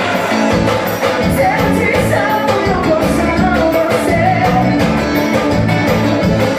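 Pisadinha-style forró music playing, with a steady driving beat and keyboard or vocal melody over it.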